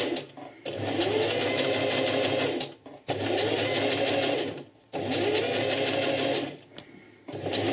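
Electric sewing machine stitching in short runs, stopping and restarting about four times as the fabric is guided around a curved seam. Each run opens with a rising whine as the motor picks up speed, under a rapid, even needle beat.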